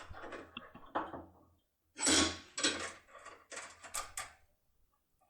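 Small metal clicks and scraping from a locksmith's foil lockpick tool being handled and worked against a lock cylinder, with the loudest scrape about two seconds in followed by several sharp clicks.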